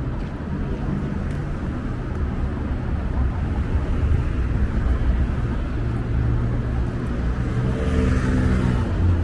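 Road traffic: car engines running with a steady low rumble, and a vehicle coming closer and louder near the end.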